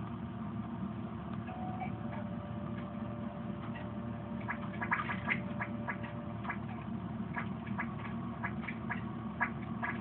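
Baby red-footed tortoise eating leafy greens: short crisp clicks of its beak biting and crunching the leaves, coming about two a second from around halfway through, over a steady low hum.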